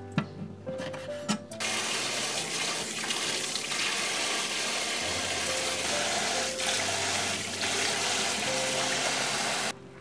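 Water running steadily from a kitchen tap over spoon worms being rinsed in a brass colander, starting about one and a half seconds in and cutting off suddenly just before the end. Before the water, a few light clicks of a knife on a wooden cutting board.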